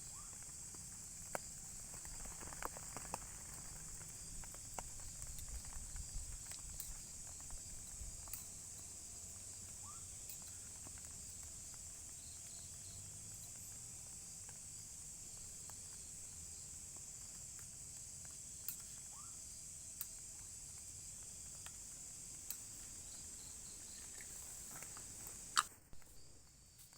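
Steady high-pitched drone of crickets in a forest, with scattered light taps and ticks, more of them in the first several seconds. A sharp click comes near the end, and the insect drone cuts off after it.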